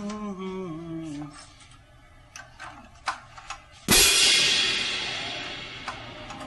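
Background music: a wavering melodic tone ends about a second in, a few light taps follow, then a sudden loud cymbal-like crash about four seconds in rings down slowly over the next two seconds.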